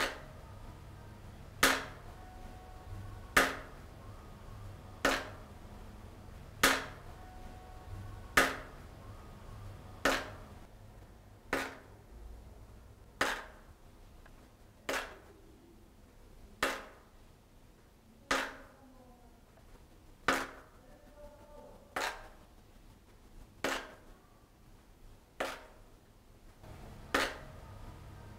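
Water dripping, one drop about every second and a half to two seconds, each landing as a sharp plink with a short ringing tail. There are about seventeen drops.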